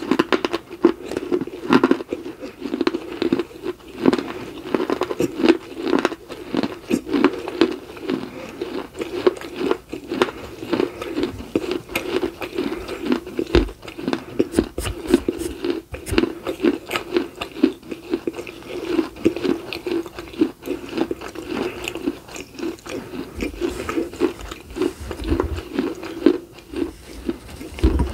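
Close-up chewing and crunching of dry baked clay from miniature terracotta pots, dense rapid crunchy bites throughout, with a few low thuds near the middle and near the end.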